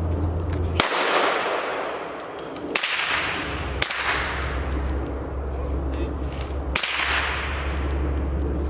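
Four gunshots fired up into the treetops at a squirrel, each a sharp crack that rings out briefly through the woods, spread over about six seconds.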